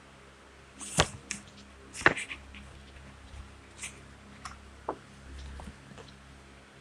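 Scattered faint clicks and taps over quiet room tone, the two sharpest about one and two seconds in: a picture card and a sheet of paper being handled.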